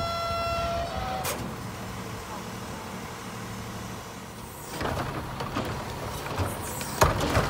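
Rear-loader garbage truck's diesel engine running steadily, with a pitched squeal in the first second that steps up slightly in pitch before it stops. Near the end there is a single sharp bang as a cart is tipped into the hopper.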